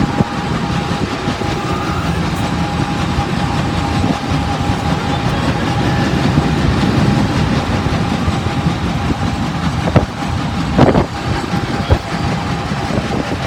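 Union Pacific Big Boy 4014's train rolling past with a steady rumble and wheels clacking over rail joints. A thin steady tone rides above it, and a few sharper knocks come near the end.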